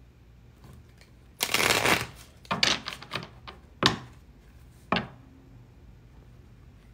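A tarot deck being riffle-shuffled. The cards riffle together about a second and a half in, followed by a few short rustles as they are bridged back together. Two sharp taps come near the end.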